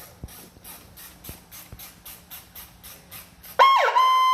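Fire apparatus electronic siren sounded briefly through its newly replaced speaker: a sudden loud wail comes in near the end, dips once, holds steady, then starts to wind down. Before it there is a faint rhythmic high ticking, about three a second, over a low hum.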